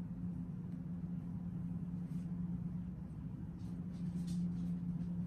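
Steady low hum, with a few faint soft rustles, mostly in the second half.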